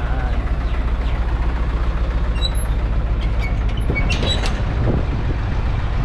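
Metal clinks and clanks, about two and a half to four and a half seconds in, as the rear door latch of a box truck is worked open, over a steady low engine rumble.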